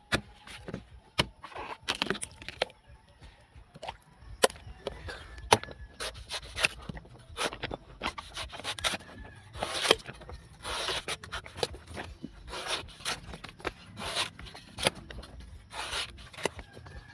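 A long knife slicing through the soft white husk of a young green coconut: a string of short cutting and scraping strokes with sharp clicks, irregular at first and coming faster from about six seconds in.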